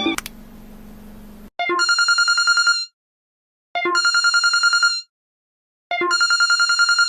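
Old-style telephone bell ringtone: three rings of a rapid trill, each about a second long with short silent gaps between them. A quieter low steady buzz comes before the first ring.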